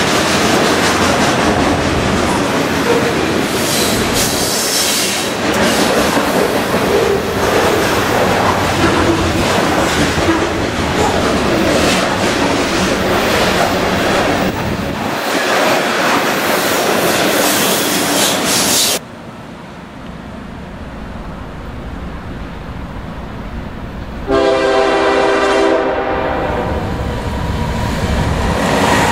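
A freight train of green trash-container cars rolling past close by, a steady loud rumble of wheels and cars with rail clatter, which cuts off about two-thirds of the way through to quieter background. About five seconds before the end, a locomotive horn sounds from an approaching CSX GE ES40DC leading an empty trash train. It is loud for a couple of seconds, then carries on more weakly.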